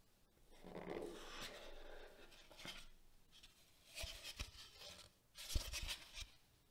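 Cardboard box and packaging being handled and opened: rustling and sliding for a couple of seconds, then a few sharp taps and knocks as pieces are set down.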